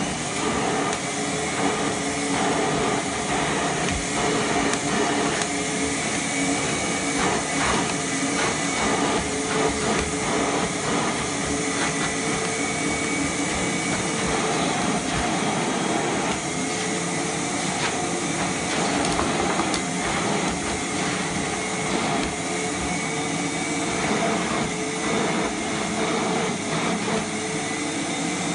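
Vacuum cleaner running steadily with its hose brush nozzle drawn along a dog's coat. It is a steady rushing noise with a hum whose pitch shifts slightly now and then.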